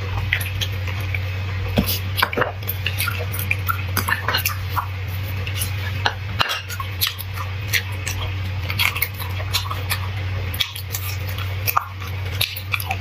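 Close-up eating sounds of a person chewing and sucking bone marrow from stewed marrow bones: many irregular wet clicks and smacks, with small knocks of bone and spoon against the dishes, over a steady low hum.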